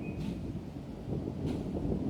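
Continuous low rumbling of distant thunder, swelling and fading, from a thunderstorm passing close by.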